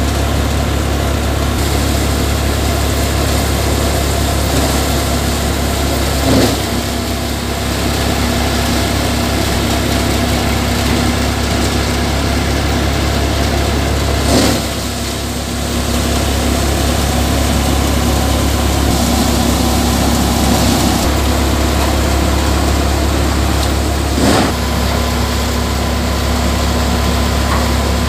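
Tractor-driven Dashmesh paddy thresher running steadily together with the tractor's engine, a loud even low hum, as paddy bundles are fed into the threshing drum. A brief knock stands out three times.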